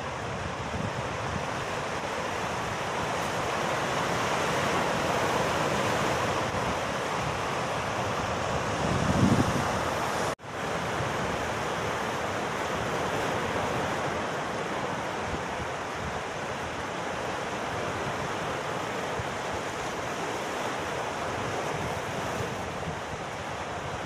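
Sea surf breaking and washing over rocks along a rocky shore: a steady rush of churning water that swells and eases, with one louder low thump about nine seconds in. The sound drops out for an instant about ten seconds in.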